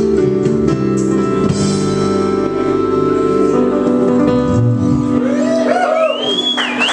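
A live band's final chord on electric guitar and keyboard ringing out and dying away at the end of a song. Near the end, audience cheering and a high wavering whistle start up.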